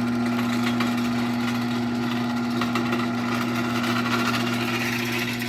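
Liftmaster 1155LM half-horsepower chain-drive garage door opener running, its motor giving a steady hum under the rattle of the chain drive and its original gear. It is really quite quiet for a chain drive.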